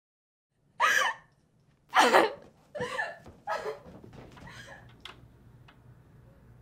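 A person gasping: four sharp, loud, breathy vocal gasps spaced about a second apart, trailing off into fainter breaths. Two small clicks follow, over a low steady room hum.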